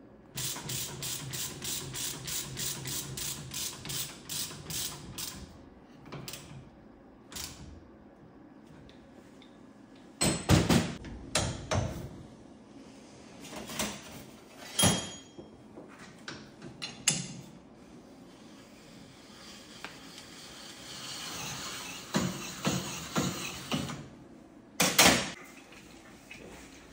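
Ratchet wrench clicking steadily, about four clicks a second for some five seconds, then scattered knocks and clanks of tools on metal, with one loud knock near the end.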